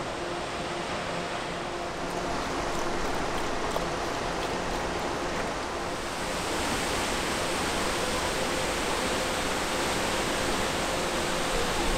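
Waterfall rushing: a steady, even roar of falling water, growing brighter about six seconds in.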